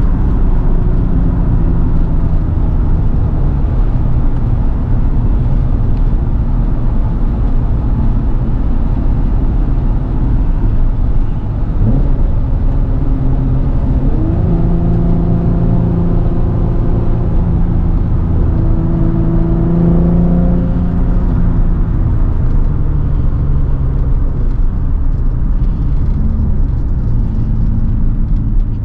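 Twin-turbocharged 2006 Nissan 350Z's VQ35DE V6 running as the car is driven at a fairly steady pace, a low engine note over road noise. The pitch stays mostly level, with one brief rise about twelve seconds in and a clearer, slightly shifting note for several seconds in the middle.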